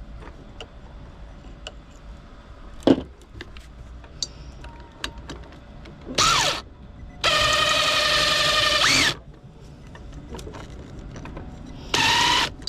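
Handheld power drill run in three bursts: a short one, a longer one of about two seconds, then another short one. Each time the motor whines up to speed and winds down when the trigger is released. A sharp click comes before the first burst.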